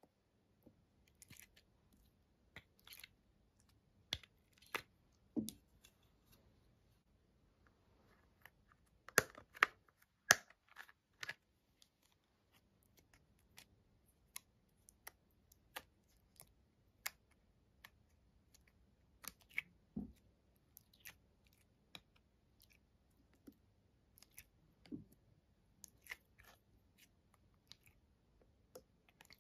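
Sticky slime being pressed and squished by hand in a glass bowl, with scattered sharp clicks and taps of a hard plastic makeup palette and its lid. The loudest clicks come in a cluster about nine to ten seconds in.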